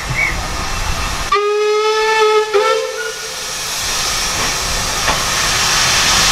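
Steam locomotive whistle blown about a second in: one long note and then a short second note. Afterwards an even hiss of escaping steam builds steadily louder.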